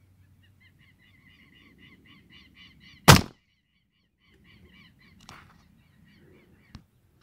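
A single loud shot from a 5.5 mm Jade Pro Nitro air rifle about three seconds in. Around it, a bird calls faintly in fast repeated notes, and a sharp click comes near the end.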